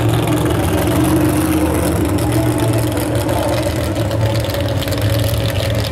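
Engine of a lifted Chevrolet mud truck running steadily at low revs, with a few slight rises and dips in pitch.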